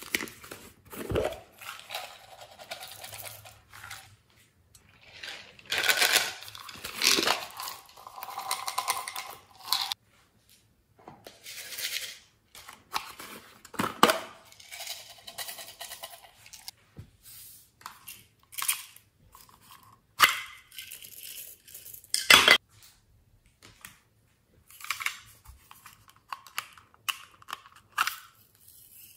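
Small plastic containers being opened and tipped into a glass dish: dry glitter, sequins and tiny beads spill out in rustling, hissing stretches of a few seconds, with sharp clicks and knocks of plastic lids and containers between them, the loudest knocks about a second in, about 14 seconds in and about 22 seconds in.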